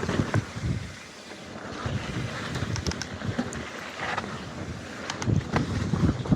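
Wind buffeting the microphone over the rumble and rattle of a mountain bike riding a dirt trail, with a few sharp knocks about five seconds in.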